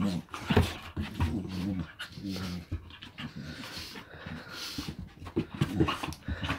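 Two Staffordshire bull terriers play-fighting, growling at each other in a string of short growls. The growls are loudest at the start and again near the end.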